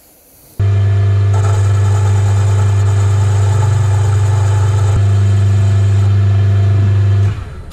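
Milling machine running with a boring head and boring bar in its spindle, set over a bore in a cast cylinder head: a loud, steady motor hum. It starts suddenly about half a second in and stops shortly before the end.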